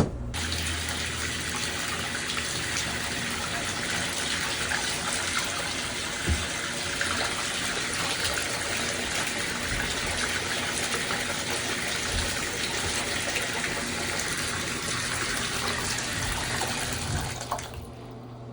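Water running in a steady stream for about seventeen seconds, then stopping, with a single light knock partway through.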